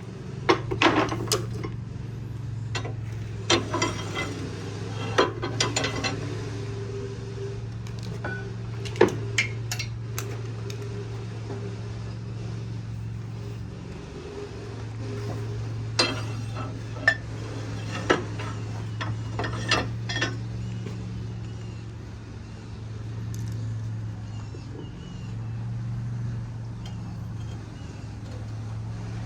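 Metal hand tools and hydraulic-cylinder parts clinking and knocking in scattered strikes, mostly in the first twenty seconds, over a steady low hum.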